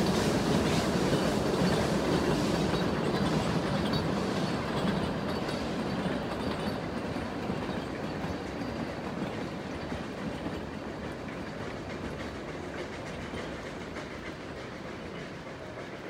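Puffing Billy narrow-gauge steam train rumbling and clattering across a wooden trestle bridge, the sound fading steadily as the train draws away.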